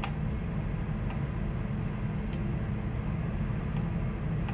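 Steady low machinery hum of a ship's bridge, with a few faint clicks.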